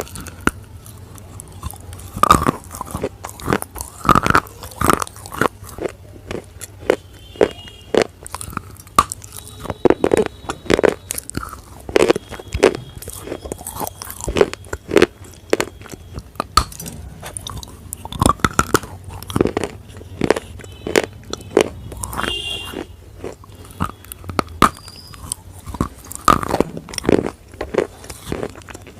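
A person biting into and chewing a slate bar: many sharp, irregular crunches and snaps, one after another.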